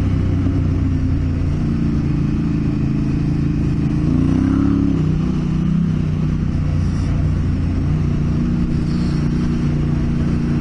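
Motorcycle engine running steadily while riding along a dirt track, the revs rising briefly about four seconds in and settling back.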